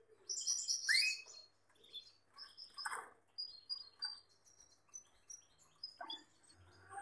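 Gloster canaries chirping and twittering: a string of short, high notes, loudest in a burst about a second in, then quieter scattered chirps.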